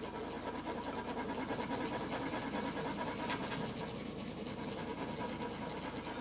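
Monks' metal sand funnels (chak-pur) being rasped with a scraper, a steady fast scratching that lets coloured sand trickle onto the mandala.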